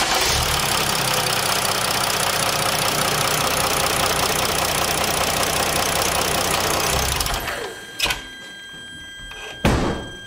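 Mercedes OM642 3.0 L V6 turbodiesel running just after starting, loud with diesel clatter, then dropping to a much quieter idle about seven and a half seconds in. A sharp click about eight seconds in and another near the end.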